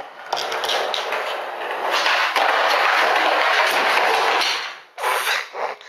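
Skateboard wheels rolling over concrete: a steady rushing noise that builds, holds, and drops away about four and a half seconds in, followed by a few short bursts.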